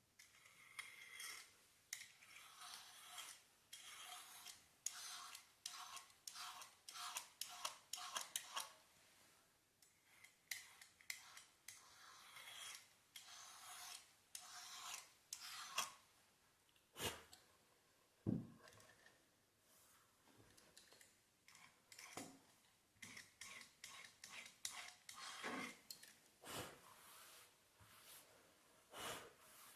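A knife blade scraped down the beveled edge of a snooker table cushion rail, taking off the sharp edge in many short, faint strokes. There is a sharper knock about two-thirds of the way through.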